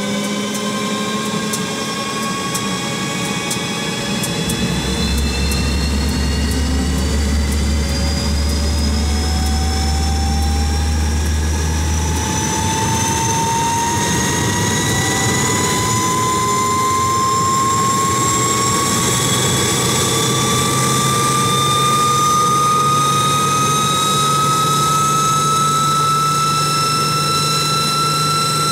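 Fokker F27 Friendship's Rolls-Royce Dart turboprop engines running with the propellers turning, a high turbine whine rising slowly and steadily in pitch. A low drone sits under it for several seconds in the first half.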